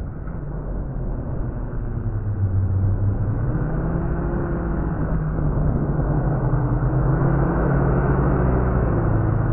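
FPV quadcopter's brushless motors and propellers whirring in flight, a low hum whose pitch drifts with throttle and steps up about three or four seconds in, over a steady rushing noise.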